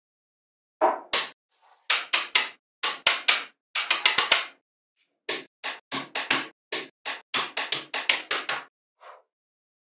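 Small metal magnetic balls clacking and snapping together as a slab of them is pressed and reshaped by hand. They give a string of sharp clicks, mostly in quick clusters of two to five, and stop near the end.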